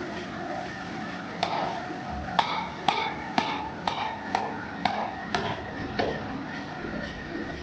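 Blacksmith's hammer striking metal on an anvil, a run of about nine blows at roughly two a second, each with a short ring, starting about a second and a half in and stopping about six seconds in.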